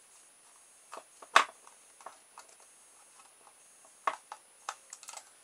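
A few sharp plastic clicks and taps from a small screwdriver working at the plastic casing of a battery-powered LED light, opening it up to fit batteries. The loudest click comes about a second in, with another cluster near the end.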